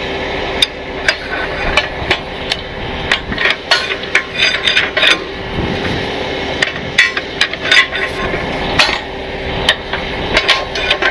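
Irregular metallic clanks and clicks of steel chain and galvanized wheel-lift scoops being handled at the back of a rollback tow truck, over a steady low hum.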